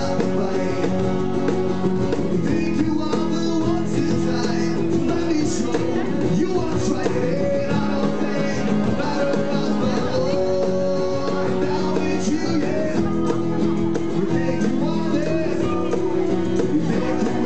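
Live acoustic band music: two acoustic guitars strummed and a cajón beaten in a steady groove, with long held notes from a harmonica played into a microphone.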